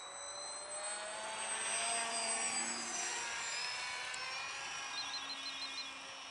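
Electric motor and propeller of a Super Bandit depron foam parkjet RC plane whining in flight as it passes. The sound is loudest about two seconds in, and the pitch then falls as the plane moves away.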